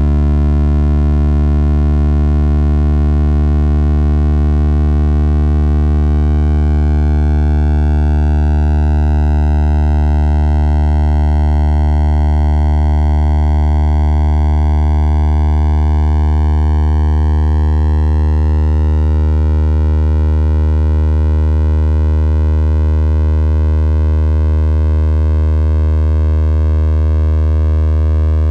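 Computer-synthesized drone generated from moving circles mapped into audio waveforms: a steady low tone with a dense stack of overtones, the upper overtones slowly shifting and beating against each other. Some of the lowest partials fade out near the end.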